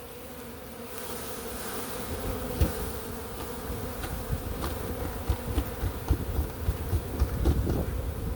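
A swarm of honey bees buzzing steadily in a mass, with scattered low bumps and a few clicks over the hum.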